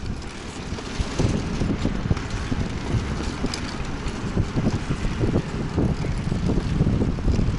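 Wind buffeting the microphone during a bicycle ride, a steady rushing noise with a low rumble and irregular gusty thumps.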